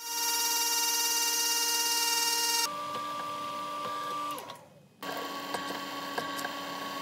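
Milling-machine spindles machining aluminium plate in a run of short cuts. First a CNC mill's spindle whines steadily with an end mill skimming the plate's edge. A quieter spindle then runs and winds down, falling in pitch. About five seconds in, a drill bit cuts a hole in the plate to a steady whine with scattered ticks.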